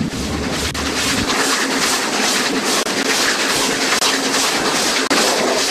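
Steam locomotive running at speed, heard from a carriage window of the train it pulls: a fast, even beat of exhaust chuffs in a steady rush of noise. A low rumble drops away about a second in.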